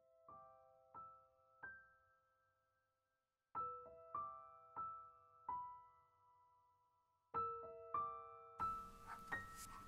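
Soft solo piano background music: slow single notes and small chords, each left to ring and fade, with a short pause partway through. Near the end, a faint scratching of a marker on paper comes in under the music.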